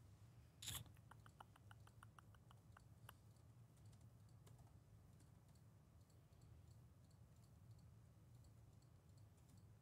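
Near silence: room tone, with a brief rustle about half a second in and a quick run of faint light clicks over the next two seconds.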